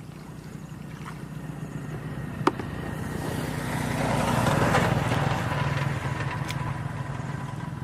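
An engine running with a steady low hum that grows louder to a peak about halfway through, then eases off, as a passing vehicle or boat would; a single sharp click about two and a half seconds in.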